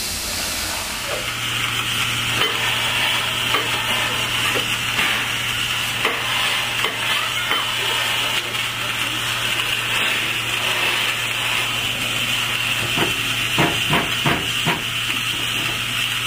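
Narrow-gauge steam locomotive standing at a platform, steam hissing steadily from around its cylinders, with a few short knocks near the end.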